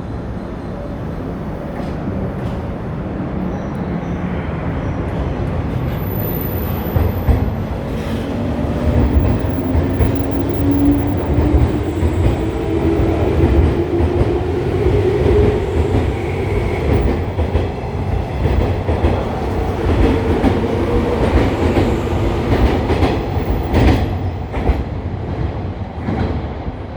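JNR 185 series electric train pulling out: its DC traction motors hum and whine, rising in pitch as it gathers speed, over a growing rumble and wheel clatter across rail joints.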